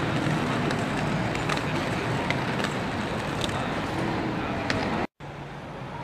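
Tram running along street track: a steady rumble with scattered sharp clicks from wheels and rails. It cuts off abruptly about five seconds in, giving way to quieter street traffic noise.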